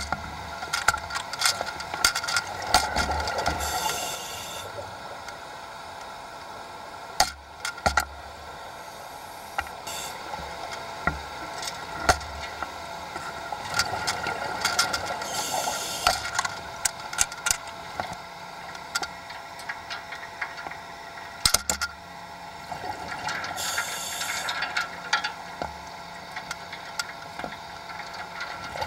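Underwater sound through a camera housing: a steady hum with many scattered clicks and knocks, and three bursts of hissing bubbles about ten seconds apart, the rhythm of a scuba diver's exhalations.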